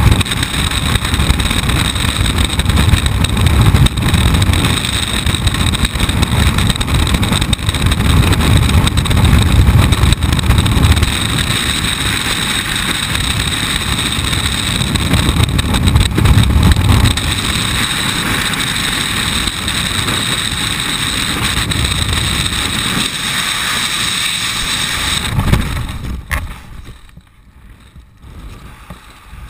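Freefall wind blasting over a helmet-mounted camera, loud and steady. About 26 s in it falls away sharply as the parachute opens, leaving a much quieter rush of air under canopy.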